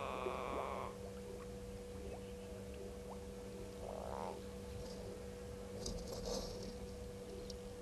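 An animal call: an even-pitched note held for about a second at the start, then a shorter, fainter one about four seconds in. A few faint high chirps come around six seconds, over a steady low hum.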